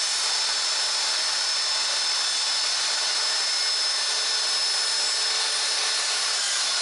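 Small benchtop table saw running steadily while ripping a 1-by-12 board, a continuous motor whine with the blade cutting through the wood.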